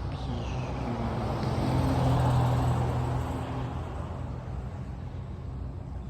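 A motor vehicle's engine and road noise, swelling to its loudest about two seconds in and then easing off, as of a vehicle going past.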